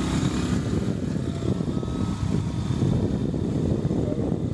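Steady rumble of a vehicle under way on a rough road, with wind buffeting the microphone.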